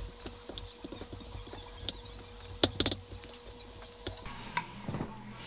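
Peeled sweet potato being mashed in a glass bowl with a wooden spoon: irregular taps and scrapes of the spoon against the glass, with a few louder knocks around two and three seconds in.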